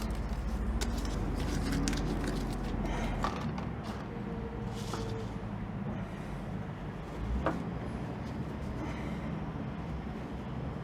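Rustling and scattered light clicks of cloth and Velcro being handled, over a steady low hum that stops about three seconds in; one sharper click comes near the end.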